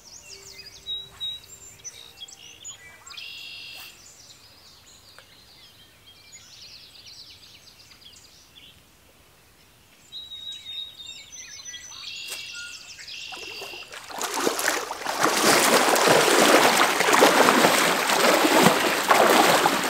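Birds chirping and whistling in short calls over a quiet river. About two-thirds of the way in, loud, continuous splashing of water starts, with legs wading through the river.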